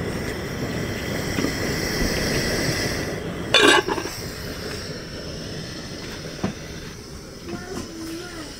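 Gas ring burner on a gas cylinder, its blue flame burning with a steady rushing noise that fades in the last few seconds. A brief, loud squeal cuts in about three and a half seconds in.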